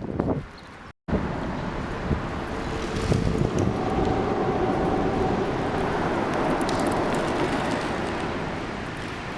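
Steady wind noise over the microphone while riding a bicycle, with a low rumble of road traffic. The sound cuts out completely for a moment about a second in.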